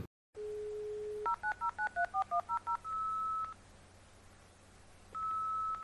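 Telephone sound effect: a steady dial tone for about a second, then a rapid run of about ten touch-tone (DTMF) keypad beeps, then a longer single-pitched beep that comes again about two seconds later.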